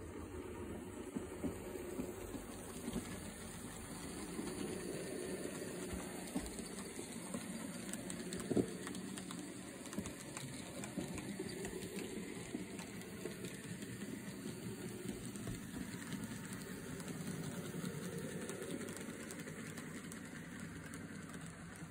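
Model MH4 steam locomotive running with its mixed train on layout track: a steady mechanical whirr of the model's motor and gearing with the wheels rolling on the rails. There is one sharp, louder click about eight and a half seconds in.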